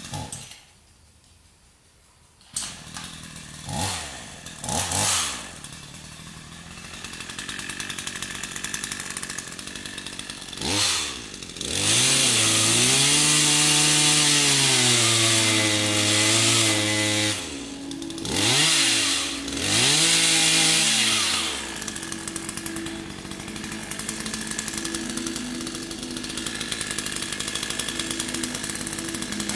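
Gasoline chainsaw starting up about two and a half seconds in, revved in short blips, then held at high revs for about five seconds with the pitch dipping and wavering, revved twice more and left running steadily at idle.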